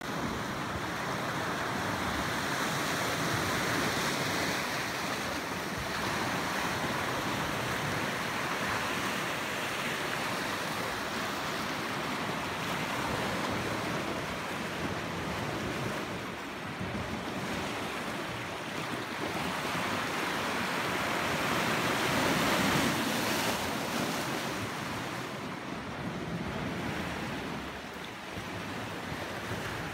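Sea surf washing against a rocky shore: a steady rush of breaking water that swells and eases in loudness.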